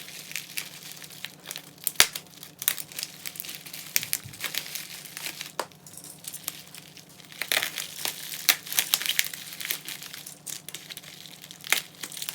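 Packaging crinkling and rustling as it is handled and opened by hand, an irregular run of crackles with a sharp click about two seconds in. A faint steady low hum lies underneath.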